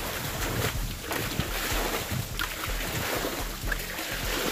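Muddy water splashing and sloshing as men bail a shallow pool by hand with buckets, scooping and throwing the water out in irregular splashes.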